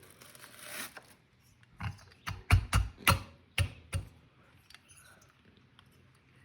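A quick run of seven or eight sharp knocks and clicks over about two seconds, from engine parts being handled and fitted together while a small two-stroke bicycle engine is assembled.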